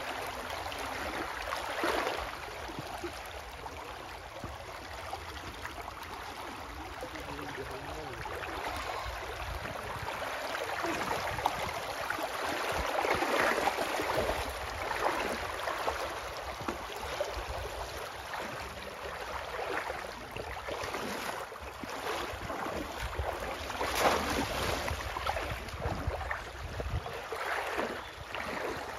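Shallow river water splashing and sloshing as a person wades and works a bamboo polo trap and an arm through the water, over flowing water, with irregular louder splashes, the strongest about 2, 13 and 24 seconds in.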